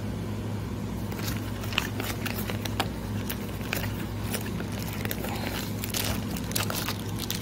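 Light crackles and clicks of hands opening a small cardboard box and pulling out a plastic-bagged part, over a steady low hum.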